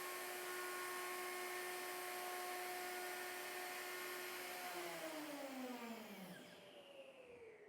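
Electric wood router running at full speed with a steady whine, then switched off about halfway through, its pitch falling steadily as the motor and bit spin down over about three seconds.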